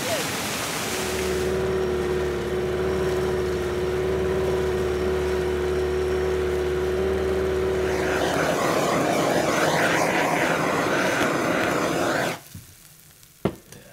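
A steady propeller-motor hum with a high whine lasts about seven seconds. It gives way to a handheld torch's flame hissing for about four seconds, which cuts off suddenly, and a single sharp click follows.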